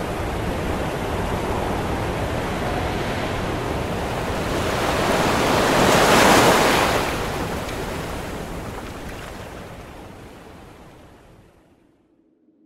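Ocean surf: a steady rush of waves that swells to its loudest about halfway through, then fades out.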